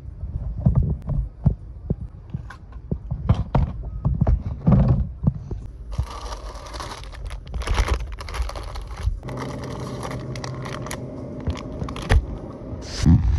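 Irregular thumps, knocks and rustles of a handheld phone being moved around and grocery items being handled and dropped into a plastic shopping basket, with a steady hum in the second half.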